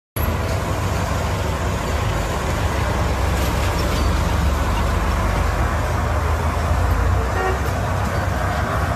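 Oxygen gas venting from a leaking tanker: a loud, steady rushing hiss over a deep low rumble.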